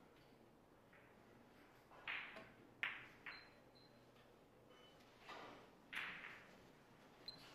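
Billiard balls clicking on a shot: a sharp click about two seconds in as the cue ball is struck, followed by two quick clicks of balls hitting each other, then two duller knocks a couple of seconds later as the balls come to rest.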